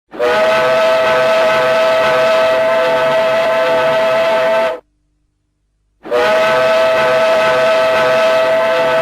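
Lokomotiv Yaroslavl's ice hockey goal horn blowing two long, steady blasts of a single held chord, with a silent break of just over a second between them. It signals that the team has scored.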